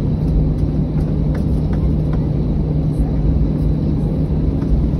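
Airbus A321 jet engines running, heard from inside the cabin while the aircraft rolls on the ground: a steady low hum over rumble.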